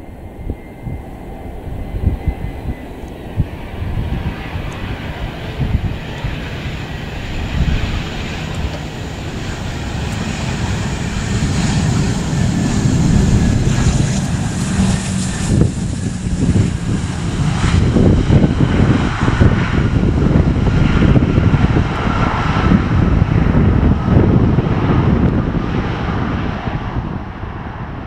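Bombardier Global 6000 business jet landing, its twin Rolls-Royce BR710 turbofans growing louder through touchdown and the rollout. The engine noise is loudest in the second half, then fades near the end.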